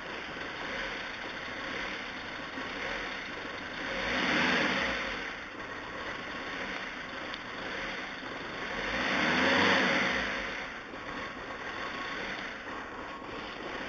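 Volkswagen Transporter T4's 2.5 TDI five-cylinder diesel engine idling, blipped twice, about four and nine seconds in, each rev rising and falling back to idle. The engine has an unstable idle and loss of power, which the owner traces to air drawn into the intake through the crankcase breather (oil vapour recirculation) hose.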